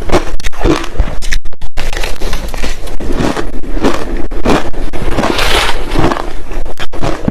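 Crushed ice being bitten and chewed close to the microphone: a rapid, uneven run of loud crunches, with a brief break about a second and a half in.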